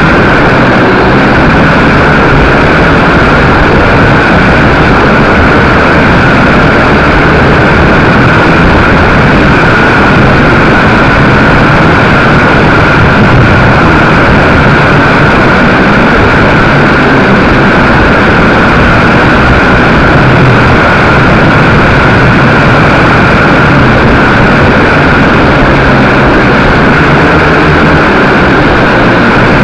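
A 222 quadcopter's motors and propellers heard through its onboard camera's microphone: a loud, steady whine and buzz in flight.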